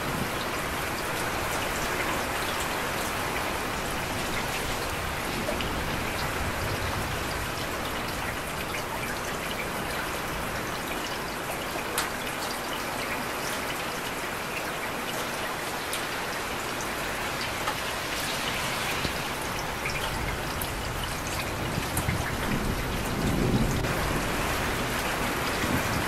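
Steady heavy rain falling, with a few sharper drop hits standing out here and there. A low rumble swells briefly near the end.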